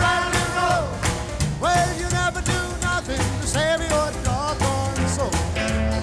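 Rock and roll music with a steady beat and a gliding melodic lead line.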